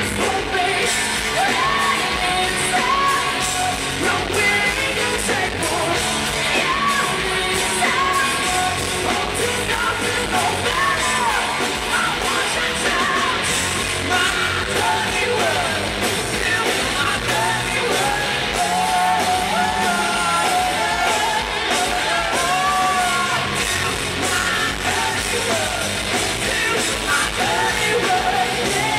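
Live hard rock band playing loudly, with a female lead singer's voice belting sung lines over the band.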